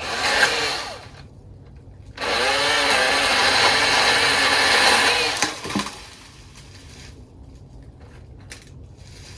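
Milwaukee M18 battery-powered pole saw: the electric motor and chain run in a short burst, then run for about three seconds cutting through wood, the pitch dipping and wavering under load. A few clicks follow as it stops.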